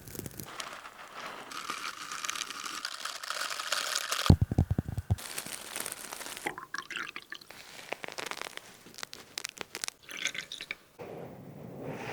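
A run of close-up ASMR trigger sounds, changing every second or two: crinkly, crunchy handling noises and liquid sounds, with a quick burst of sharp clicks about four seconds in.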